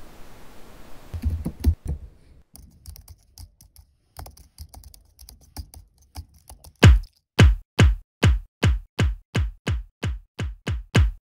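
Laptop keyboard typing for the first couple of seconds, then faint ticks, then a run of deep electronic kick-drum hits, each dropping in pitch, about two to three a second and speeding up slightly.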